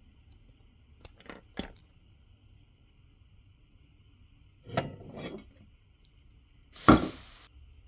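Small hard objects being handled: three light clicks about a second in, two rattling knocks near the five-second mark, then a sharper, louder knock about seven seconds in.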